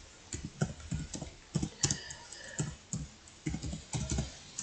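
Typing on a computer keyboard: a run of irregular keystrokes, a few a second.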